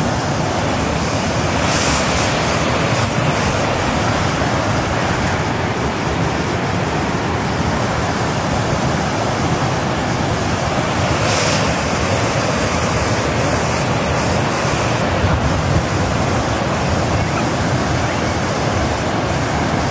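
Water pouring over a concrete dam spillway into the lake below: a steady, even rush of falling water.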